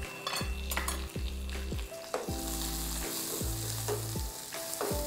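Onions, garlic, curry leaves and rampe sizzling in hot oil in a wok, stirred with a wooden spatula that scrapes the pan now and then. Soft background music with steady low notes runs underneath.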